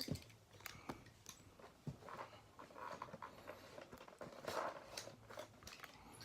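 Cardboard and plastic toy packaging being handled, with faint rustling and a scatter of small clicks and taps.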